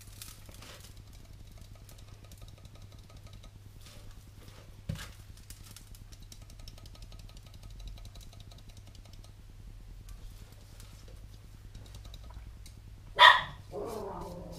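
Quiet sprinkling and rubbing as ground spice mix is shaken from a grinder cup onto a beef brisket and worked in by hand, over a steady low hum. Near the end comes one short, loud pitched cry, the loudest sound here.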